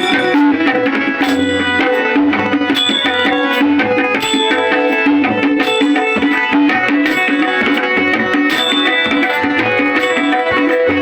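Tabla playing a steady rhythm in an instrumental passage of a devotional bhajan, over sustained accompanying notes.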